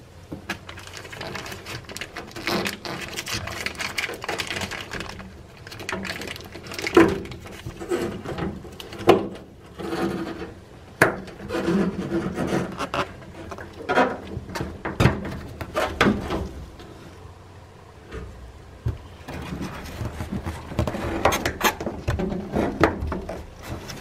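A rubber-gloved hand working a washing machine's wiring harness out of its plastic retaining clips: irregular rubbing and scraping against the plastic cabinet, with scattered sharp clicks and knocks.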